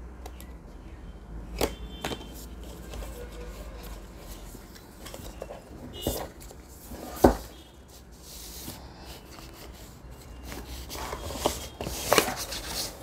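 Cardboard speaker packaging being opened by hand: a flap pried open and a black inner box slid out of its printed cardboard sleeve. Scattered taps and knocks, the loudest a sharp knock about seven seconds in, with scraping and rustling of cardboard near the end.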